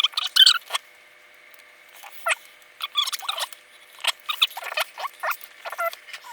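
Small plastic building pieces and their plastic bags being handled: scattered light clicks and crinkly rustles, densest in the first second.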